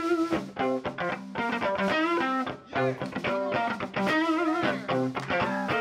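Blues electric guitar playing lead phrases with bent notes and vibrato over a bass guitar line.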